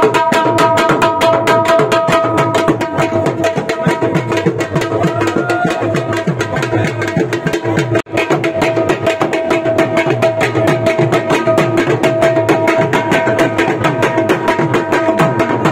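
Dhol, a double-headed barrel drum, beaten in a fast, even rhythm with cane sticks, with a steady held note from another instrument over the drumming. The sound breaks off for an instant about eight seconds in, then carries on.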